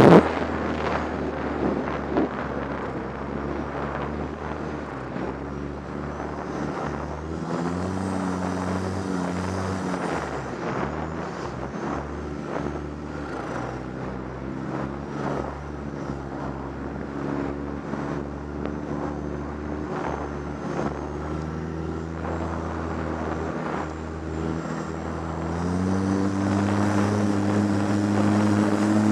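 Arctic Cat F1100 turbo snowmobile engine running under the rider. The engine note rises about seven seconds in, falls back about ten seconds in, and climbs and gets louder again near the end as the throttle opens. Knocks from the sled bouncing over the rutted snow run through it, with a loud jolt right at the start.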